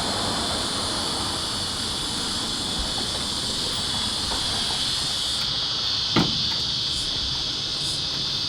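Steady high-pitched chorus of chirping insects, typical of crickets. There is one short knock about six seconds in.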